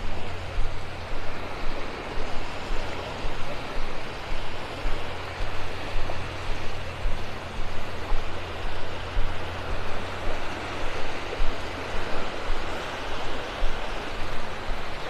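Wind rushing and buffeting over the microphone, a steady low rumble with a fluttering level, with surf washing in behind it.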